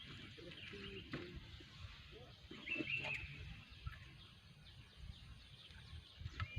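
Quiet open-air background with a few short bird chirps, around three seconds in and again near the end, over faint distant voices.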